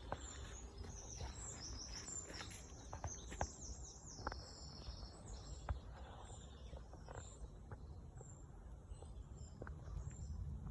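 Songbird singing with quick, high, repeated chirps, busiest in the first half, over a steady low rumble of outdoor background noise with scattered soft clicks.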